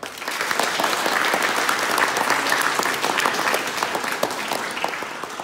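Audience applauding: dense clapping that starts at once and slowly dies down over the last couple of seconds.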